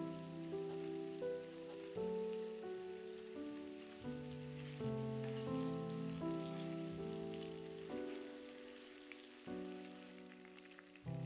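Slow music of long held chords that change every second or two, with a steady hiss and faint crackles behind it.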